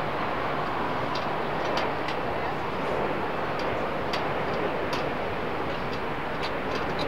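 Jet airliner engines heard across the airfield as a steady rushing noise, with scattered short high ticks over it.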